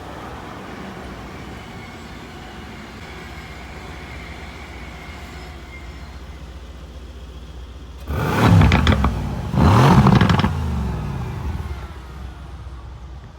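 Mercedes-AMG C 63 S Cabriolet's twin-turbo V8 idling steadily, then revved twice in quick succession about eight seconds in, each rev rising and falling in pitch, before settling back to idle.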